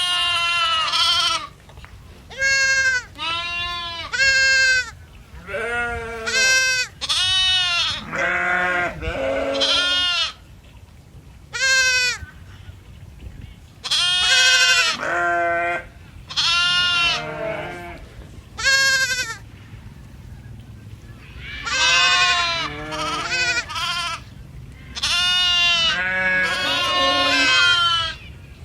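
Goats bleating over and over: a long run of loud, wavering calls with short pauses between them, some calls overlapping.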